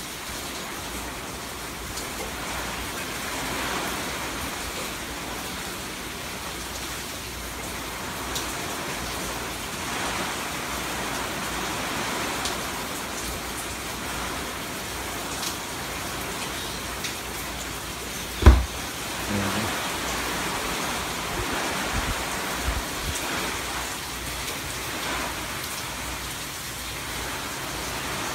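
Heavy hurricane rain falling steadily, a constant hiss of rain on surfaces. One low thump about two-thirds of the way through.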